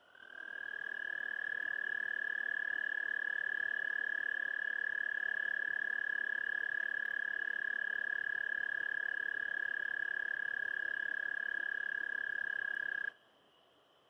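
Male American toad's mating call: one long, steady, high musical trill that rises slightly at the start, holds for about thirteen seconds and stops abruptly.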